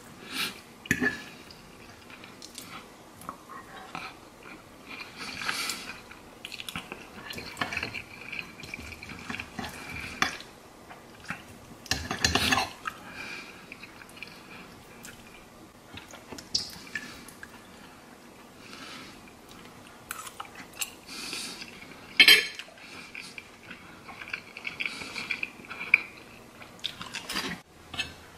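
Metal fork clinking and scraping on a plate in irregular strokes while fried eggs are eaten, with some chewing.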